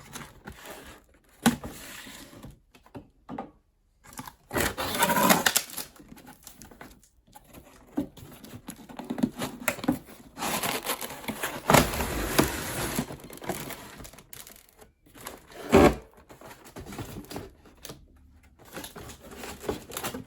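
Toy packaging being opened by hand: plastic and cardboard crinkling and tearing in irregular bursts, with scattered clicks and a sharp knock about three-quarters of the way through.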